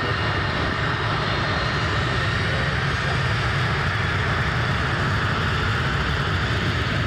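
Boeing 747-400 jet engines running steadily as the airliner rolls past on the ground, a dense, even noise with a faint high whine over it.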